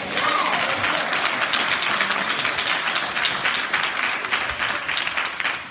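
Church audience clapping and applauding, thinning out near the end.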